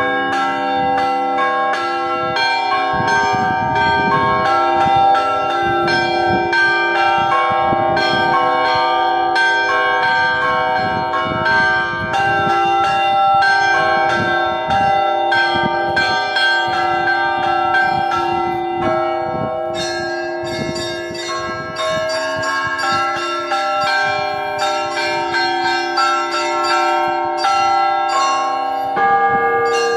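Russian Orthodox church bells rung in a festive peal (zvon): rapid, dense strikes of the small bells over the ringing, overlapping tones of the larger bells.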